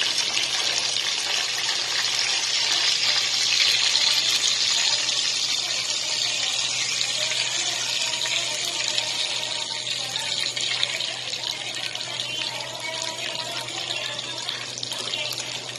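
Chicken pieces sizzling as they fry in hot oil in a pan: a dense, steady hiss that eases off slightly toward the end.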